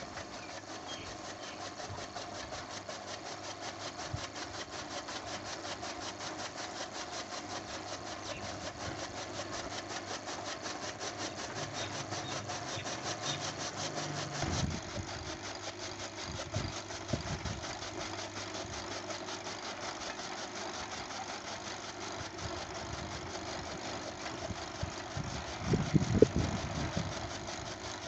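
Electric chaff cutter (fodder chopper) running, its motor and flywheel giving a steady hum with a rapid even beat. There are a few thumps partway through, and a louder burst of chopping near the end as green fodder is fed into the blades.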